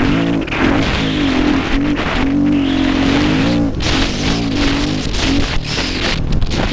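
KTM dirt bike engine running under load, its pitch rising, holding and dropping every second or so as the throttle is worked, with wind rushing on the microphone.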